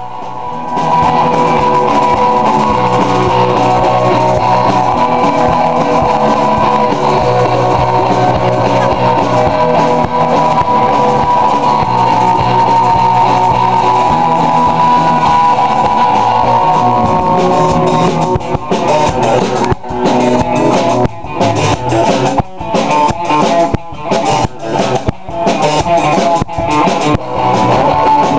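Rock music with guitar and drum kit. The first part holds steady sustained chords; about 18 seconds in it breaks into short, choppy hits with brief gaps between them.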